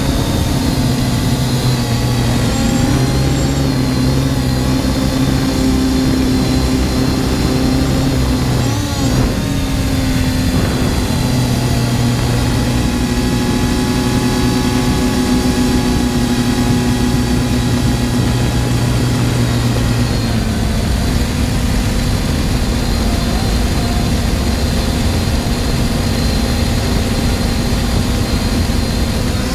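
Force1 F100 Ghost quadcopter's motors and propellers whirring steadily, the pitch of the whine shifting a little twice as the motor speed changes.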